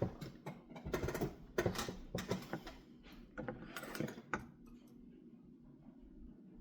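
Quick clicks and light knocks of small objects being handled on a work table, with a busy spell that dies away after about four and a half seconds.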